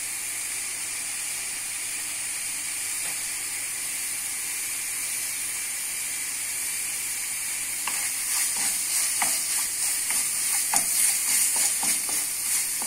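Red tomato spice paste sizzling in hot oil in a nonstick wok, a steady hiss. From about eight seconds in, a wooden spatula starts stirring and scraping the paste, and the sizzle gets louder and choppier, with scattered ticks and scrapes.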